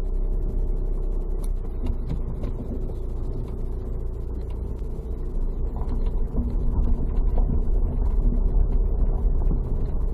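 Car driving: a steady low engine and road rumble, with scattered small clicks and rattles. It grows somewhat louder about six seconds in.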